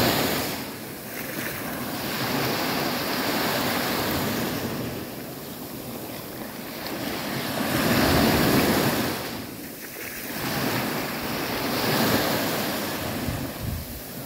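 Small waves breaking and washing up a sandy beach, the surf swelling and falling back about every four seconds.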